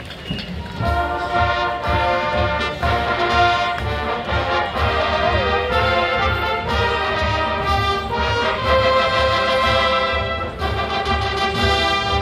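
Marching band playing, with brass chords and a steady drum beat underneath, starting about a second in.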